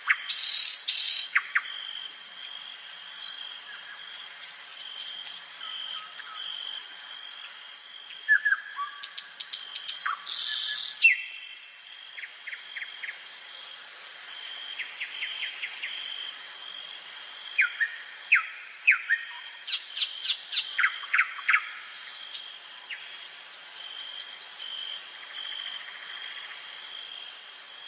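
Songbirds chirping and singing in many short, quick calls over a steady high note. About halfway through, a continuous high-pitched buzzing trill starts and keeps on, with more chirps over it.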